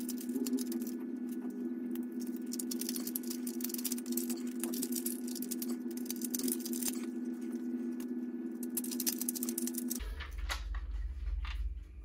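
Screws being driven with a screwdriver through a plastic Type 2 socket holder into the wall: a run of fine, irregular scratching clicks over a steady hum. About ten seconds in the hum changes to a deeper one.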